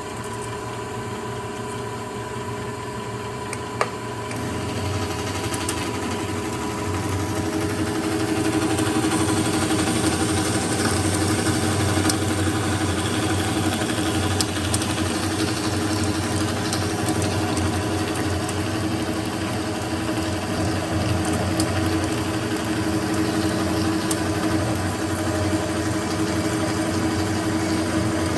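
Amada H250SAII horizontal band saw running steadily, with a single click about four seconds in. The sound then grows louder in two steps and settles into a steady cutting sound as the blade comes down into the metal stock.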